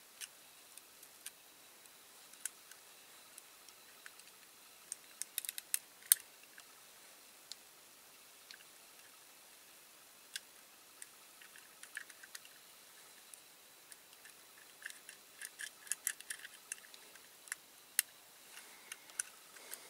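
Small parts of a diecast toy car being handled and fitted by hand: scattered light clicks and taps, a cluster about five to six seconds in with one sharper click, and a longer run of clicks near the end.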